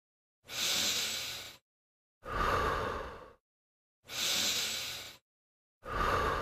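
A person breathing in and out twice: four breaths of about a second each, a hissy in-breath followed by a lower out-breath, then again, with dead silence between them.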